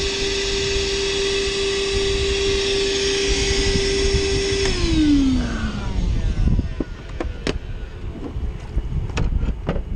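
Portable wet/dry shop vacuum running with a steady whine, then switched off just under five seconds in, its motor winding down in falling pitch. A few sharp knocks and clunks follow as it is handled.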